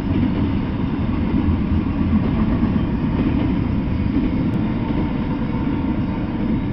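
Double-stack intermodal freight train rolling past at close range: a steady low rumble of its container-laden well cars on the rails.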